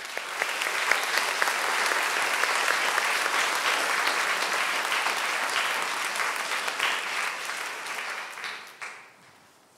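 Audience applauding: dense clapping that tapers off and stops about nine seconds in.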